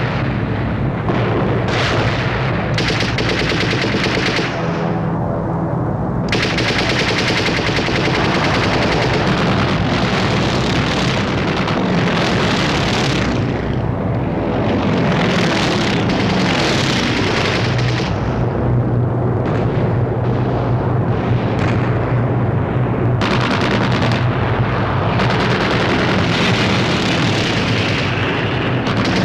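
Continuous battle sound effects on an old film soundtrack: sustained machine-gun and rifle fire with a steady low rumble under it, the sharper crackle dropping away and returning several times.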